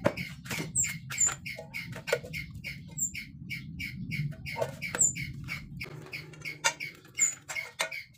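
A bird chirping over and over in short, evenly spaced calls, about three a second. A few light clicks near the end come from steel pieces being handled.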